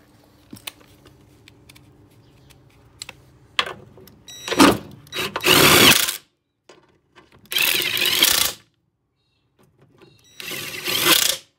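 Cordless power driver spinning a socket in four short runs of about a second each, starting a few seconds in, running in the bolts that mount a lawn mower engine to the underside of its deck.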